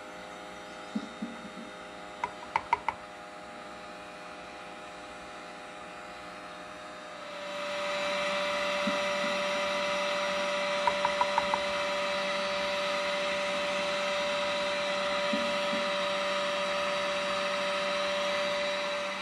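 Steady whirring hum of a heat gun's blower running, which gets louder about seven seconds in. Two quick sets of three or four light metal taps, a couple of seconds in and again about halfway through, from the jig in pliers being tapped to shake powder out of its eye.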